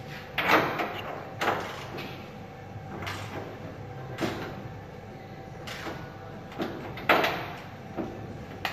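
A run of sharp knocks and clanks, about ten in all, the loudest about half a second in and again about seven seconds in, from the raised steel hood of a 1972 Dodge Charger being handled and worked on. A steady hum runs underneath.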